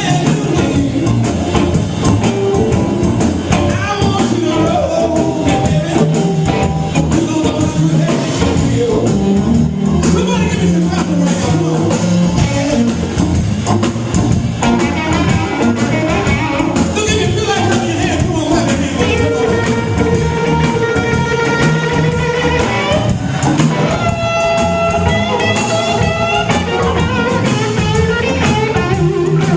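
Live blues band playing: electric guitar, bass and drum kit with a singer, several long held notes in the second half.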